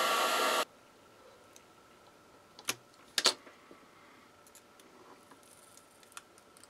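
A heat gun blowing a steady rush of hot air, switched off just under a second in. After it, two sharp clicks and light ticking as fingers handle the circuit board and its chips.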